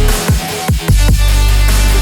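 Background electronic music with heavy bass and several falling bass sweeps about half a second in, between the rapped lines of a song.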